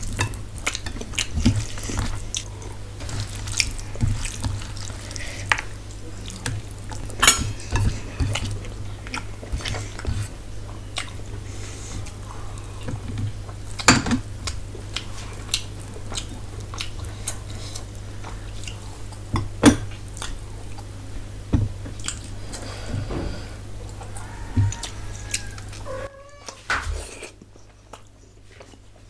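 Close-up eating sounds: fingers mixing and scooping rice on a steel plate and tearing potato paratha, with wet chewing and lip smacks. These come as irregular clicks over a steady low hum that cuts out near the end.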